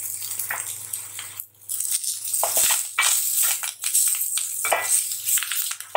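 Chopped coriander scraped off a steel plate into an aluminium pot. A wooden spatula then stirs and scrapes the sautéing onions and leaves against the pot in a run of short, dry strokes, over a faint steady low hum.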